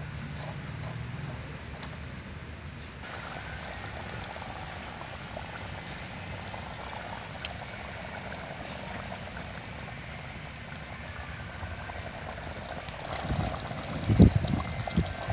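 Curry boiling in an aluminium pot over a wood fire: a steady bubbling hiss that gets louder about three seconds in, with a few low thumps near the end.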